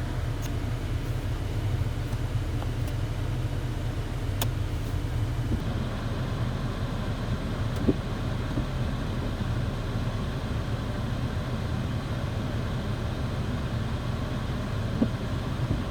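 Steady low rumble of road and engine noise inside the cabin of an Alfa Romeo Giulietta on the move, with a couple of faint clicks.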